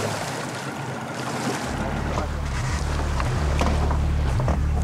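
Motorboat engine running steadily with a low drone, over wind and water noise; the drone comes in about a second and a half in.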